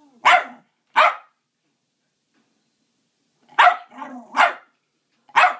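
Small dog barking: about six short, sharp barks, two close together early, then after a pause a quick run of three or four and a last one near the end.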